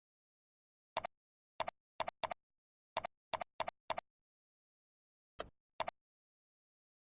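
Computer mouse clicking: about ten short sharp clicks, several in quick pairs, with dead silence between them.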